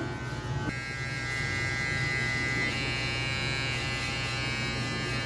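Electric hair clippers running with a steady buzz, their tone shifting slightly about a second in and again midway.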